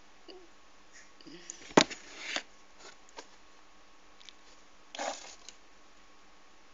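Handling noise of a held phone and a plastic conditioner bottle: short rustles, with one sharp knock about two seconds in and a brief breathy sound about five seconds in.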